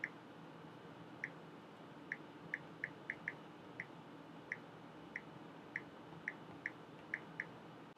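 Samsung Galaxy Tab 4 touchscreen tap sounds: a short, identical electronic blip with each tap, about sixteen of them at an irregular, typing-like pace.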